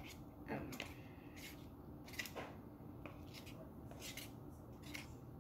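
Faint scattered clicks and light scrapes, a dozen or so, of small objects being handled on a table.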